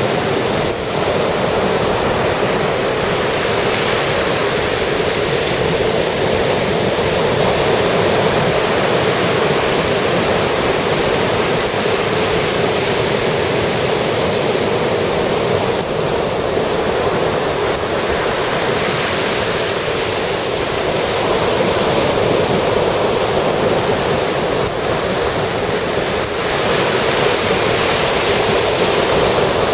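Ocean surf breaking and washing on a sandy beach, a continuous rushing wash that swells gently and grows a little louder near the end.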